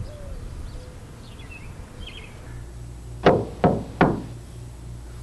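Three sharp knocks, a little under half a second apart.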